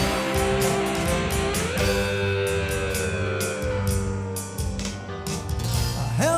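Live rock band playing an instrumental break: a lead guitar holds long notes that bend up in pitch, over bass and a steady drum beat with cymbals.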